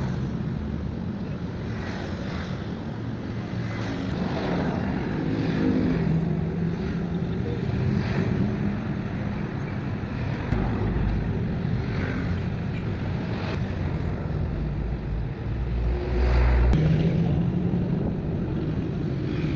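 Street background noise: vehicle engines running and passing, with wind buffeting the microphone. There is a louder swell of rumble near the end.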